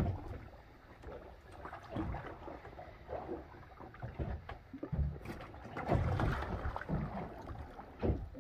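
Water lapping against a small boat's hull, with irregular soft knocks and handling noises on deck and a sharper click near the end.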